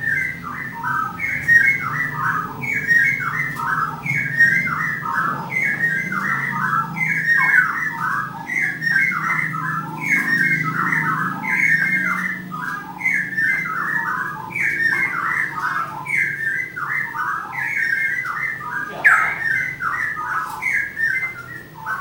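Caged songbird singing the same short phrase of falling whistled notes over and over, about once a second, over a low steady hum. A single sharp knock sounds near the end.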